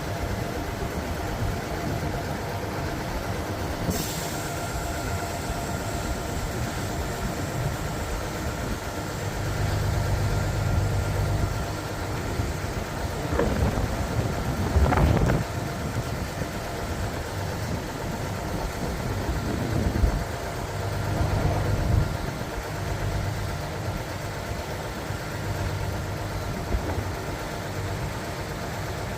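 Concrete pump truck's diesel engine running steadily, its low drone swelling for a second or two several times, with a short sharp hiss about four seconds in.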